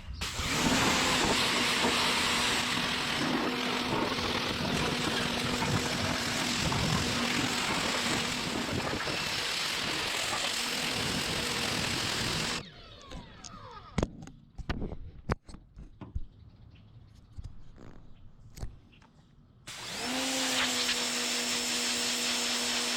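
Electric pressure washer running with its motor's steady hum under the hiss of the spray. It cuts off about 13 seconds in, leaving a few clicks and knocks, then starts again about 20 seconds in.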